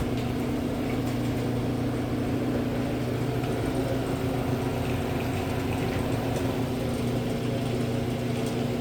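Chamberlain 9902 half-horsepower screw-drive garage door opener starting up abruptly and running the door down: a steady motor hum, very quiet apart from some rattling in the screw rail.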